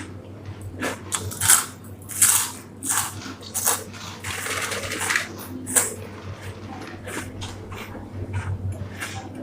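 A person crunching and chewing Kurkure, crisp corn puff snacks, in quick, irregular crunches.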